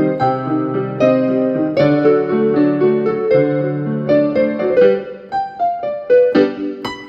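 Digital piano playing a slow piece in a piano voice: held bass chords under a melody, thinning to sparser single notes in the last couple of seconds.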